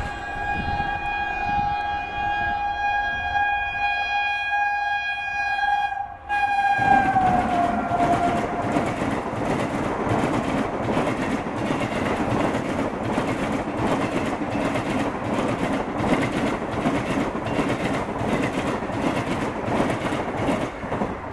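Passing Indian Railways express train: the electric locomotive's horn sounds one long steady blast, then drops in pitch as the train goes by, followed by the coaches rushing past with a steady, regular clatter of wheels over rail joints.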